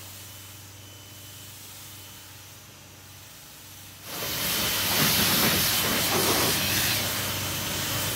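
Garden hose spray nozzle rinsing foam off a car's painted panels with tap water: a steady hiss of spraying water, quieter at first and much louder from about four seconds in.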